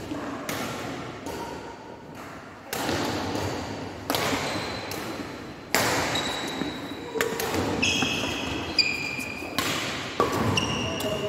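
Badminton rally: rackets striking the shuttlecock in sharp cracks every second or so, echoing in a large hall, with shoes squeaking on the wooden court floor in the second half.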